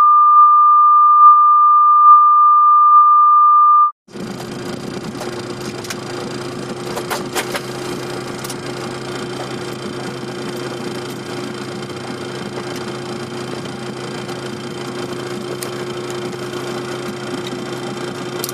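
A loud, steady single-pitch beep lasting about four seconds that cuts off sharply. After a short gap comes the steady cockpit drone of an airliner rolling out on the runway: a constant hum under an even hiss.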